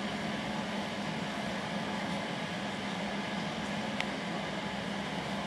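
Steady low hum with an even hiss, from a household appliance running, and one faint click about four seconds in.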